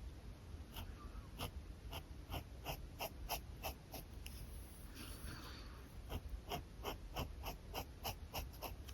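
Pen scratching on paper in short, quick sketching strokes, about two or three a second, with one longer stroke about five seconds in.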